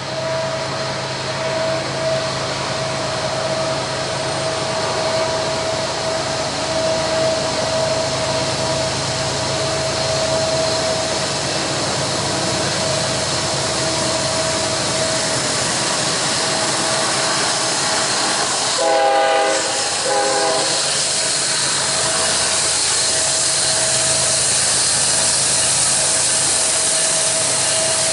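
Approaching Norfolk Southern freight train led by EMD two-stroke diesel locomotives (SD70M, SD40-2 and SD70ACe): a steady engine drone that slowly grows louder. A locomotive horn sounds two short blasts about two-thirds of the way in. Wheel and rail noise builds after that.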